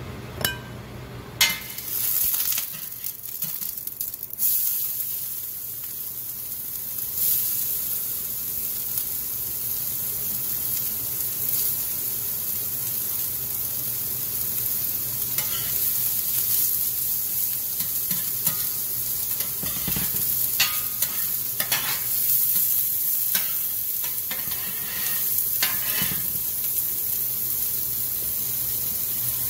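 Chopped onions and bell peppers frying in oil on a hot flat-top griddle: a steady sizzle, with scattered scrapes as a spatula stirs them. A couple of sharp knocks come near the start.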